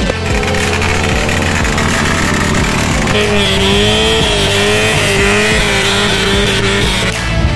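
Loud, steady motor-vehicle noise, typical of a car running hard at a car-show drifting display. From about three seconds in, a wavering high-pitched tone rises above it.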